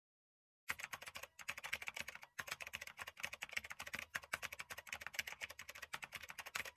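Rapid keyboard-typing clicks, many keystrokes a second, starting under a second in, with a few short breaks.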